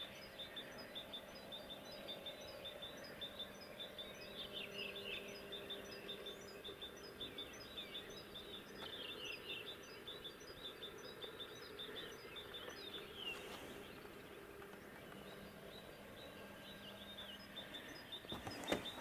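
Birds chirping and singing, a dense run of short, quick, falling notes repeated throughout, faint over a steady low hum.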